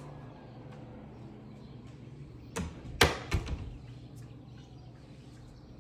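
A quick cluster of three or four sharp knocks within about a second, about halfway through, the second the loudest, over a faint steady low hum.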